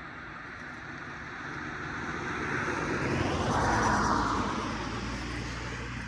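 A vehicle passing by, growing louder to a peak about four seconds in and then fading away.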